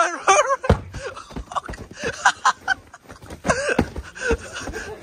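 Young men laughing and shouting, broken up by a few short sharp knocks.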